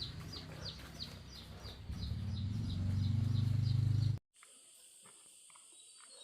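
Chickens peeping over and over, about three short falling peeps a second, over a low rumble that grows louder and then cuts off abruptly about four seconds in. A faint steady high hiss follows.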